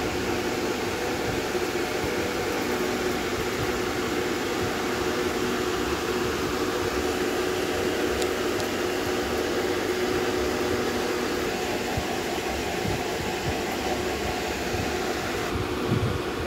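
Steady whirring hum and hiss of running machinery, with a constant low tone and no change in speed.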